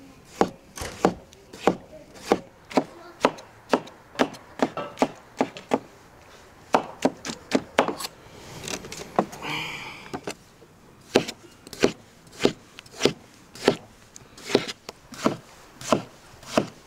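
Knife slicing tomatoes on a wooden cutting board: sharp knocks of the blade on the board, about two a second, with a short pause near the middle.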